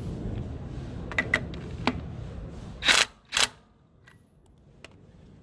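A few metallic clicks, then two short bursts from a cordless impact driver about half a second apart, spinning off a loosened wheel lug nut that is too tight to turn by hand.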